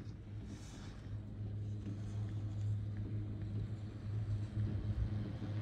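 Poma high-speed quad chairlift running, heard from a moving chair: a steady low hum that grows gradually louder as the chair nears a lift tower.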